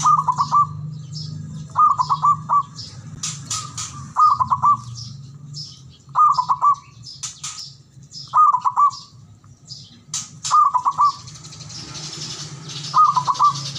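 Zebra dove (perkutut) calling: a short phrase of three or four quick coos, repeated about every two seconds, seven times. Higher chirps of other small birds come in between, over a low steady hum.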